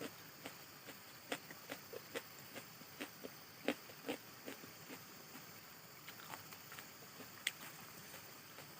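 A person chewing a mouthful of pork and fermented bamboo shoots, with wet mouth clicks and smacks at about two to three a second. The chews grow sparser and fainter after about five seconds, and there is one sharper click near the end.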